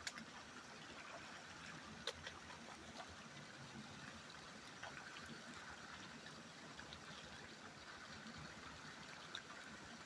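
River water flowing steadily, a faint even rush, with a few short clicks near the start, about two seconds in and near the end.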